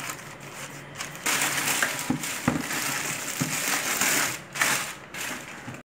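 Newspaper crumpling as it is pressed into the bottom of a plastic waste bin, then a plastic bin liner rustling and crinkling as it is spread and fitted over the rim, with a couple of light knocks against the bin about two seconds in.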